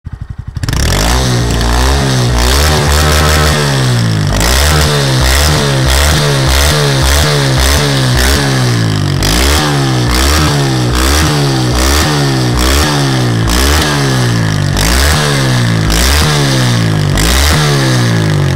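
Honda MSX 125 Grom's single-cylinder four-stroke engine breathing through a GPR full-line reverse under-engine exhaust: it fires up and is then revved in quick blips about once a second, each rising sharply and falling back to idle.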